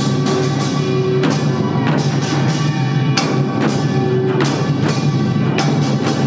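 Samulnori percussion ensemble playing a fast, loud rhythm: kkwaenggwari small gongs clanging over janggu hourglass drums and buk barrel drums, with strong accents a little under twice a second.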